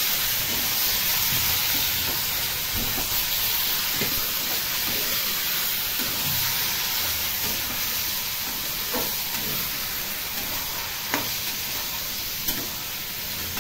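Prawns and sliced onions sizzling steadily in hot oil in a pan as they are stir-fried, with a few light knocks as the pan is stirred.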